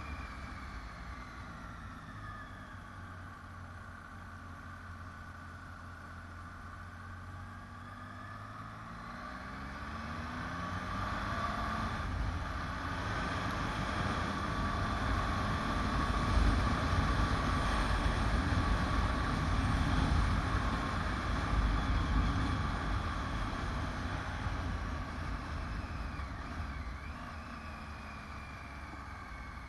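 Motorcycle engine running on a winding road, its pitch dipping and rising again through a bend in the first few seconds. A rushing wind noise on the microphone then builds through the middle as the bike gathers speed, and eases off near the end.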